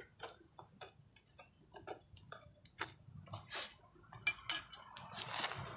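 Digging in soil with a hand tool: irregular light clicks and scrapes, with a louder knock about four seconds in and a rustling noise rising near the end.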